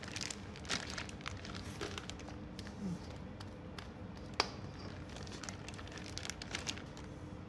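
A clear plastic piping bag crinkling as a spatula scrapes thick chocolate batter from a stainless steel bowl into it, with scattered small clicks and taps and one sharper click about halfway through. A faint steady hum runs underneath.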